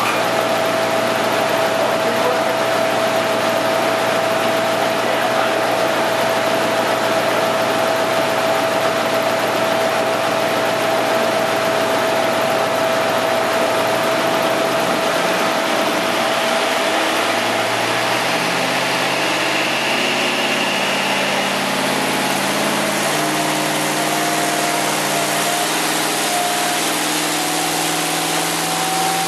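Studebaker 289 V8 running on an engine dyno, with a steady high whine over the engine through most of the stretch. In the last third the engine note shifts up and down in steps as its speed changes.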